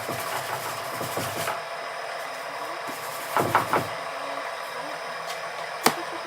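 Sandpaper rubbing over cured body filler on a fiberglass bumper lip: quick back-and-forth strokes for the first second and a half, then a short burst of harder strokes a little past the middle and a single sharp click near the end, over a steady background hum.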